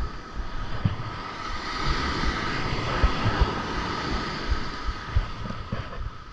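Ocean surf breaking and washing up a sandy beach, a hiss that swells for a few seconds and then eases, with wind buffeting the microphone in low thumps.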